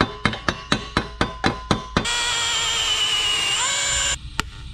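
A hammer taps a steel exhaust flange held in a vise, about four quick ringing metallic strikes a second. Then a TIG welding arc buzzes steadily on the flange, its pitch rising shortly before it cuts off suddenly, followed by a single click.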